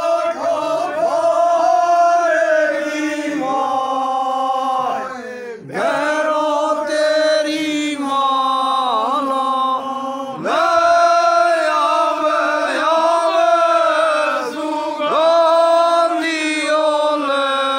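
Men singing a devotional chant together, long drawn-out notes in phrases of about five seconds with short breaks between them.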